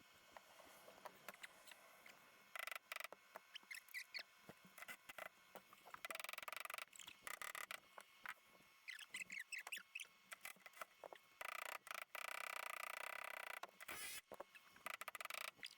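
Hand tools working on a car's rear suspension: scattered clicks and knocks of tools on metal, two longer runs of rapid clicking, and a few short high squeaks of metal parts as bolts and arms are fitted.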